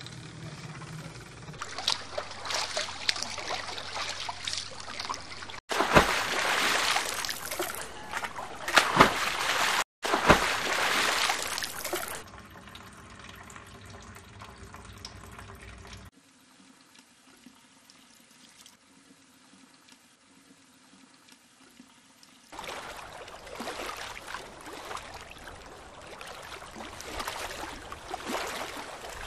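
Water pouring, splashing and trickling off wet hanks of yarn into a dye vat. It comes in several stretches that start and stop abruptly, with a quieter stretch in the middle.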